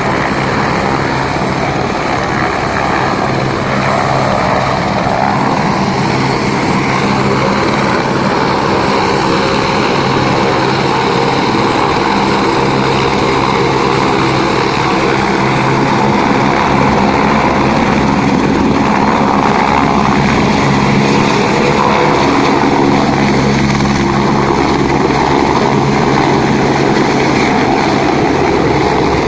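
Helicopter turbine and rotor running steadily on the pad, growing a little louder past the middle as it powers up and lifts off.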